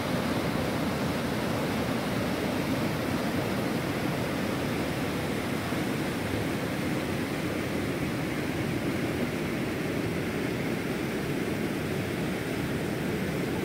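Mountain stream rushing over rocks in white-water rapids, a steady, even sound of flowing water.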